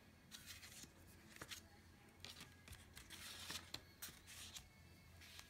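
Faint rustling, sliding and light taps of paper card stock being handled and set down on a work mat, in short scattered bursts.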